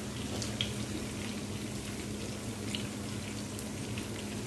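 Chopped onion and garlic sizzling in hot oil in a frying pan, a steady hiss with scattered small pops and crackles. A steady low hum runs underneath.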